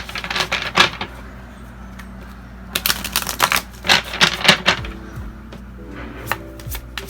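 Tarot cards being shuffled: two bursts of rapid papery clicking, the first right at the start and the second about three seconds in, over a steady low hum.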